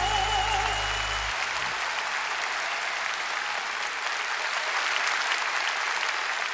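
A band's final chord and a held note with vibrato end in the first second or so. A studio audience's steady applause takes over.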